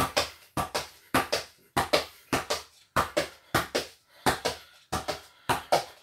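A football being juggled with the foot indoors: a steady run of hollow thuds in quick pairs, a little more than one pair a second.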